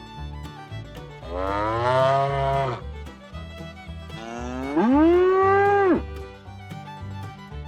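A cow mooing twice, each call about one and a half seconds long; the second rises in pitch and then holds. Quiet background music with a steady beat plays underneath.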